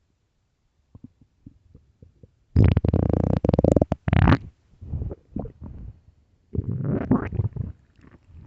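Human stomach growling and gurgling. A few faint pops come first, then a loud gurgling growl starts about two and a half seconds in and lasts almost two seconds. Smaller gurgles follow, with another growl near the end.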